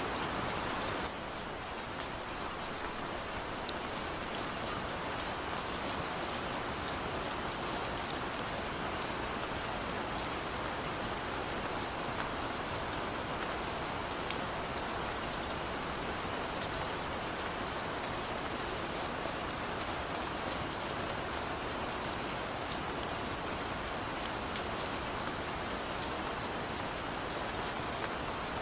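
Steady rain falling on a surface, with many individual drops ticking through the even hiss; the level dips slightly about a second in and then holds steady.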